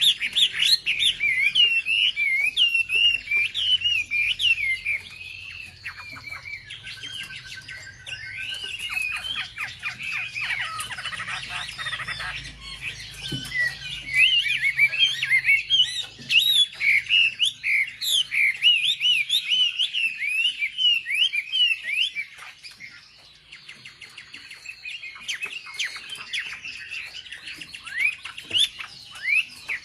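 Wambi songbird singing a rapid, varied chirping song of quick up-and-down whistled notes, louder in the first few seconds and again through the middle, with softer stretches between; a recorded wambi song used to provoke wambi birds into singing.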